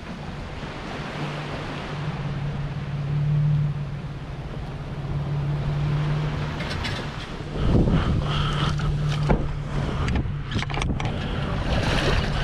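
Pickup truck engine running at a steady pitch, growing louder. About seven and a half seconds in, a louder rush of wind and water noise joins it.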